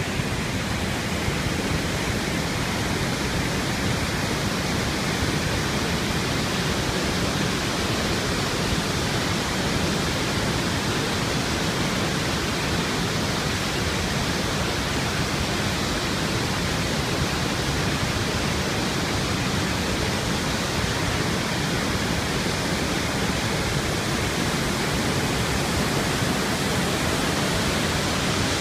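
Iguazu Falls and the rapids above them: a heavy volume of water rushing and pouring over the falls in a steady, unbroken rush.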